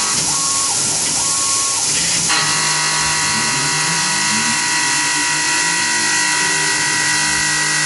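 Tormach PCNC 1100 CNC mill taking a roughing cut: a steady spindle and end-mill cutting whine with the hiss of flood coolant spraying over the part. The cutting sound changes about two seconds in.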